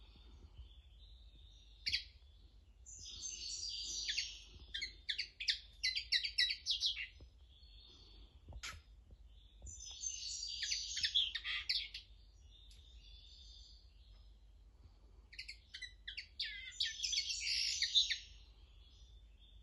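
Common linnet singing three bursts of fast, high twittering song, with softer calls between them and a sharp click between the first and second bursts. It is a tutor bird whose song phrases young linnets learn from.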